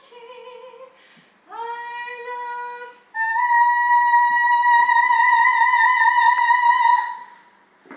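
A woman singing unaccompanied in operatic bel canto style. After two shorter notes she holds a high, loud note with vibrato for about four seconds, then stops.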